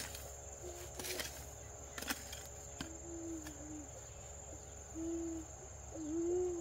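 A hoe chopping into soil, about one stroke a second over the first three seconds, over a steady high insect drone. A bird gives several short, low calls, the loudest two near the end.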